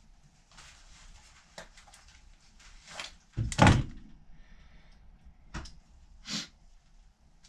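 Handling noises from small parts and tools being worked by hand: a few light clicks, and one loud knock about halfway through.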